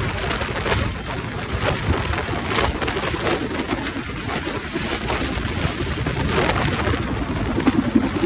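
Rescue helicopter's rotor noise with rotor wash buffeting the microphone as wind gusts; a low hum grows stronger near the end.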